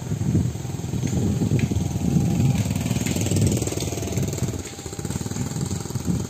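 A freight train of empty flat wagons rumbling and rattling along the rails as it passes and draws away.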